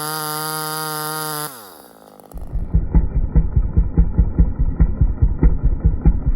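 Ported Homelite XL-76/XL-130 hybrid chainsaw held at full throttle at a steady high pitch. About a second and a half in the throttle is released: the pitch falls away and the saw drops to a low, uneven pulsing idle.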